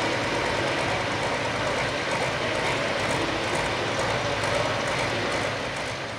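Turbocharged diesel engine of an International 1486 pro stock pulling tractor running loud and steady at the end of a pull, dropping off slightly near the end.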